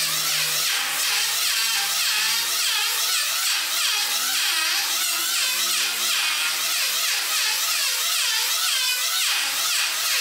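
Handheld electric planer running and cutting across a wooden handrail, its whine rising and falling over and over as the blades bite and ease off the wood.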